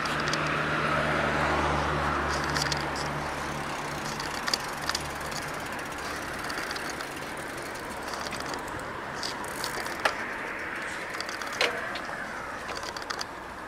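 Street traffic at a road junction: a vehicle engine runs close by for the first four seconds or so, then fades into a steady background hum broken by scattered sharp clicks.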